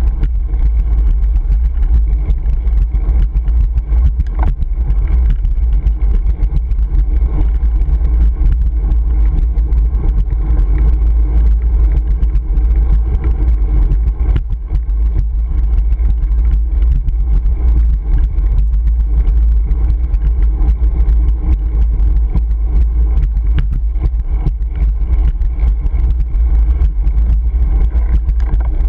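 Wind buffeting the microphone of a GoPro Hero 3 while cycling: a loud, steady, low rumble.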